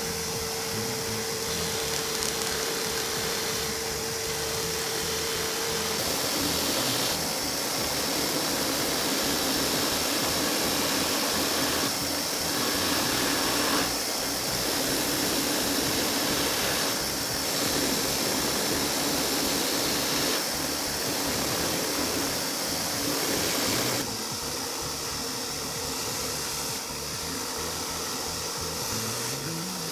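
A power tool's motor running steadily, its hum and pitch shifting at a few points.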